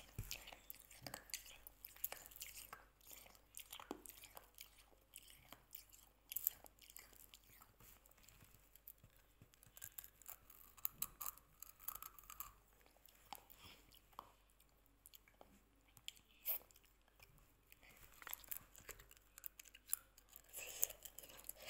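Hard candy beads of a candy necklace being bitten on the string and crunched between the teeth: faint, irregular crunches and clicks.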